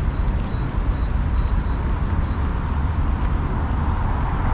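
Road traffic noise, cars going by along a busy roadside, a steady rumble with no single event standing out.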